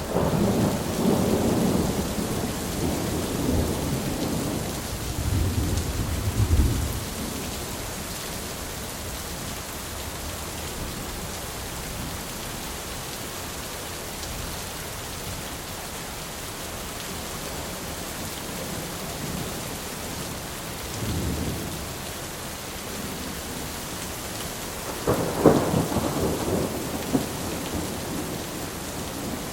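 Steady rain with rolling thunder: a long low rumble over the first several seconds, a brief rumble about two-thirds of the way through, and a louder, sharper thunderclap near the end.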